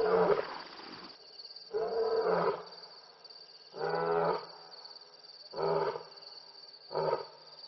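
A lion roaring in a bout of five deep calls spaced about one and a half to two seconds apart, the later calls shorter, over a steady thin high whine.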